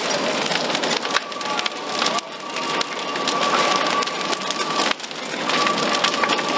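Large structure fire burning: a dense rush of flame noise full of crackling and popping from burning wood framing. A steady high tone sounds in the background and breaks off briefly about five seconds in.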